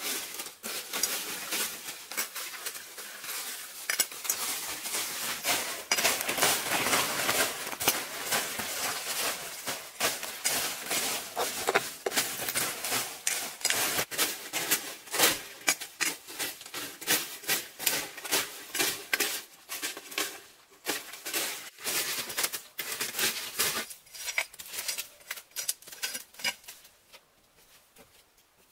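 Machete chopping and scraping at a rotting log and the dry leaf litter around it: a rapid run of sharp knocks and rustles that stops near the end.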